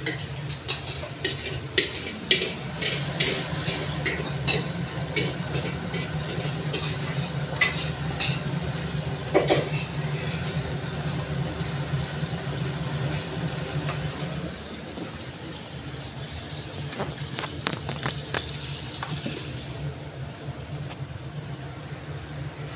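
Tomato sauce frying in a nonstick pan as it is stirred, with sharp clicks of utensils against cookware through the first half, over a steady low hum.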